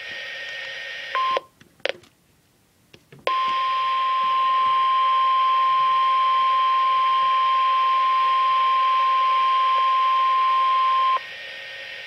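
NOAA Weather Radio's 1050 Hz warning alarm tone through a Reecom weather radio's speaker: a brief start of the tone about a second in, a cut-out, then the single steady tone held for about eight seconds before it stops near the end, leaving radio hiss. It signals that an alert message, here a winter storm watch, is about to be read.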